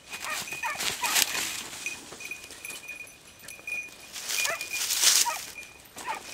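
Andalusian podencos (hunting hounds) giving short high yelps while working rabbits, a few at a time at about a second in, around four and a half seconds and near the end, mixed with bursts of rustling noise from movement through dry stubble.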